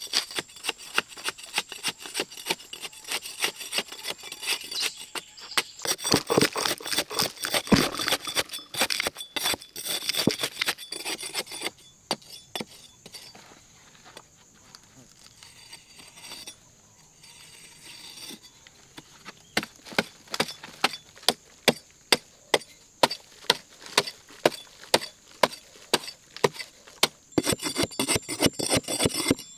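Short-handled hoe chopping and scraping into packed sandy soil, stroke after stroke. The strikes are dense at first, ease off for several seconds in the middle, then come back in a regular beat of about one and a half a second.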